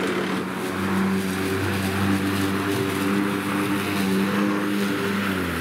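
Cordless 40 V battery lawn mower running and cutting grass: a steady electric motor and blade hum over a rushing noise. It winds down and stops right at the end. The mower is running again on its repaired batteries.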